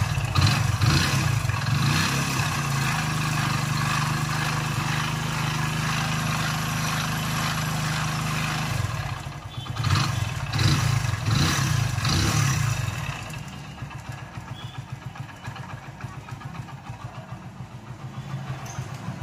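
Hero Splendor Pro's single-cylinder four-stroke engine running, revved several times near the start and again about halfway through, then settling to a quieter, even idle. It runs with heavy crank noise, which the mechanic takes for a crankshaft fault.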